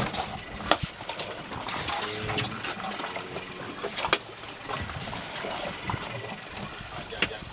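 Sea water sloshing and splashing against a small boat's hull, with a few sharp knocks.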